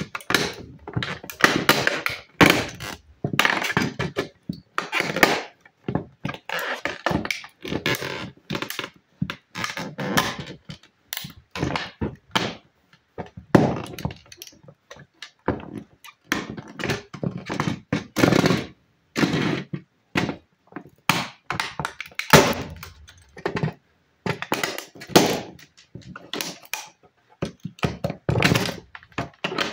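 Football cleats stomping and pressing on a small toy school bus on a plywood floor, crushing it: a long, irregular run of thuds and knocks, often several in quick succession.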